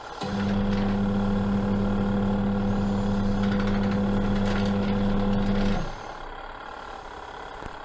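Twin-tub camping washing machine's wash motor running with a steady hum during the wash cycle. It stops abruptly about six seconds in, as the wash pauses between turns.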